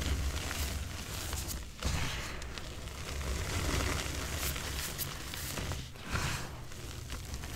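Hands crushing and squeezing re-formed gym chalk: crumbly chunks crunch apart and the loose chalk powder rustles and shifts under the fingers, in a few separate squeezes.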